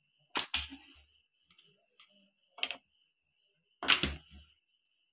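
Wooden rolling pin knocking and clattering against the rolling board while a thin sheet of samosa dough is rolled out and turned by hand: a sharp knock about half a second in, a lighter one past the middle, and a louder double knock near the end.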